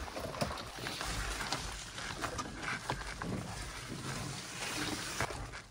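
Scattered light knocks and rustling of gear being handled and footsteps on a portage trail, over a low wind rumble on the microphone.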